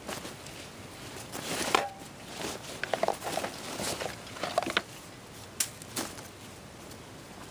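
Rustling and handling of a fabric backpack as hands rummage inside it and pull something out, with two sharp clicks about five and a half and six seconds in.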